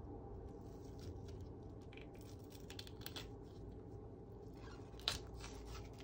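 Filefish skin being peeled off by hand: faint soft tearing and crackling, with one sharp click about five seconds in.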